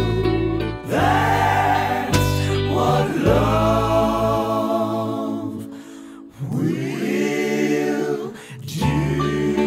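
Slow song with a sung lead voice holding long, wavering notes over backing vocal harmonies. The bass drops out for a few seconds in the middle, leaving mostly voices, and comes back just before the end.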